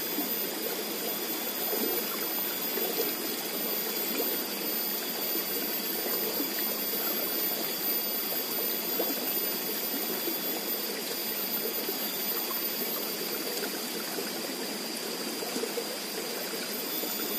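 Muddy water rushing steadily along a shallow irrigation channel.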